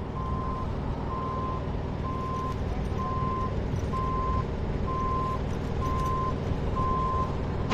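Backup alarm of a machine reversing, beeping steadily about once a second, over the low rumble of its engine running.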